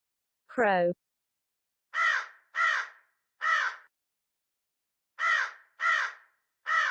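A crow cawing: two series of three harsh caws, with a pause of about a second and a half between the series.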